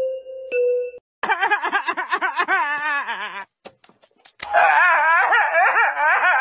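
Ringing chime tones stop about a second in. A cartoon character's exaggerated wailing and sobbing follows, broken by a few clicks near the middle, then comes back loud through a megaphone.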